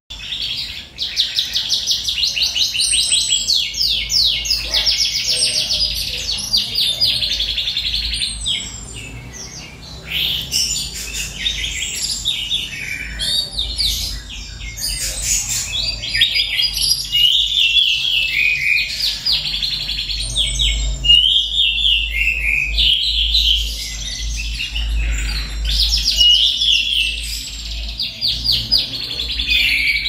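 Canary singing: long rapid trills and rolling phrases, almost without a break, over a low steady rumble. Singing in full voice like this is the sign of a canary in breeding condition, which the keeper claims for this bird.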